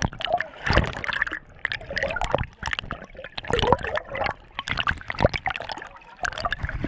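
Underwater bubbling and gurgling heard through a GoPro's waterproof housing, full of irregular clicks and crackles as bubbles and water stir around the camera.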